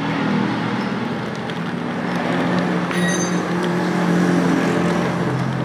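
An engine running steadily at a constant speed, with a sharp click about three seconds in.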